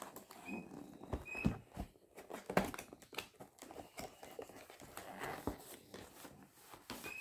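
Packaging being handled as a diamond-painting kit box is opened: irregular rustling with scattered light clicks and knocks.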